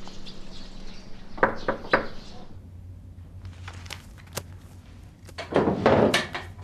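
Two sharp knocks on a wooden door about a second and a half in, then thuds and rustling as a notebook and papers are handled and set down on a wooden desk near the end.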